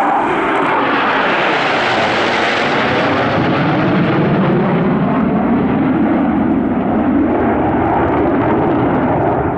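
Jet engine noise from a formation of four Su-27 fighters passing overhead. It is brightest and hissiest about two seconds in, then turns duller and lower as the jets fly away.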